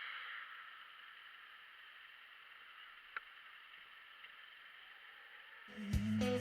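Faint steady hiss with a single short click about three seconds in; near the end, music with guitar and a strong beat comes in loudly.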